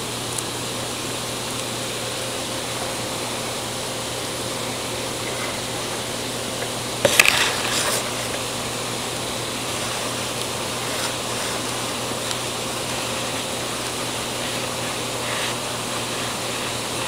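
Steady background hiss with a faint low hum, broken about seven seconds in by a brief crackling rustle that lasts about a second.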